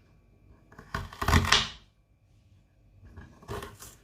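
Knife cutting peeled ginger and red onion into small pieces on a board. It comes as two short bursts of clattery chopping, the louder one about a second in and a fainter one near the end.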